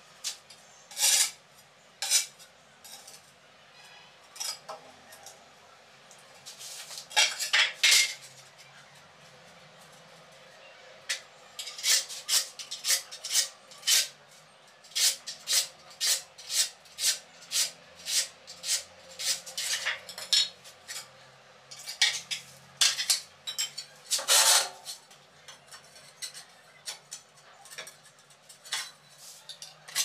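Steel trowel scraping and clinking against a mortar pan and the back of a ceramic tile as cement mortar is scooped up and spread on the tile. A rapid series of short scrapes and taps, with a few longer scrapes.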